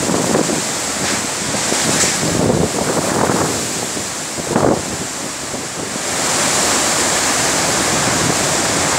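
Cyclone-force wind blowing hard through trees in uneven gusts, with wind buffeting the microphone.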